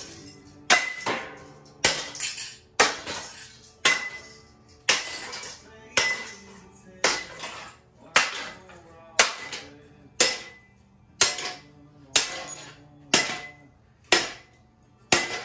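Hammer blows on an electronic device, struck steadily about once a second. Each blow is a sharp crack followed by a short metallic ring.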